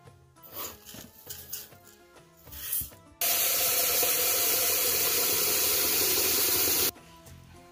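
Quiet background music with a few soft knocks, then a loud, steady hiss for nearly four seconds that starts and cuts off abruptly.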